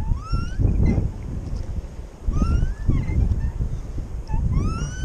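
Wind buffeting the microphone, with three short rising whistles: near the start, in the middle and near the end.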